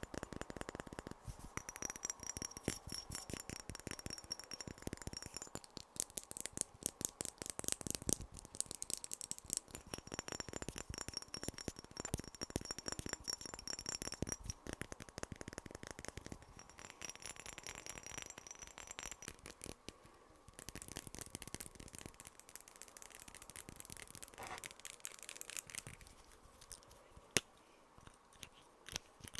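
Fast ASMR tapping and clicking, many light strikes a second, with a high ringing tone over it in stretches. It thins out to a few scattered clicks near the end.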